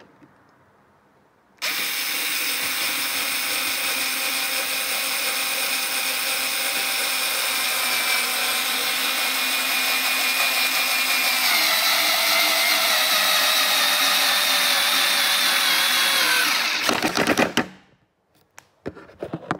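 Xiaomi Mijia electric screwdriver's motor and gearbox running steadily under load, driving a self-tapping, drill-tipped screw into hard old wood. It starts about two seconds in, its whine steps down slightly in pitch past the middle, then it stops, followed by a few knocks.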